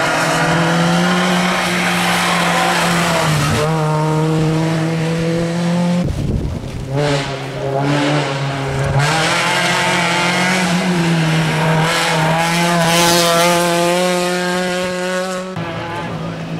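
Competition cars' engines running hard at high revs, climbing a wet hill-climb course. The note breaks off and picks up again several times.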